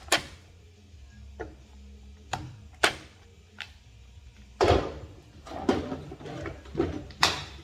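Scattered sharp clicks and knocks of tools and parts being handled, a few light ones at first, then a quicker run of louder knocks and scrapes from about halfway through.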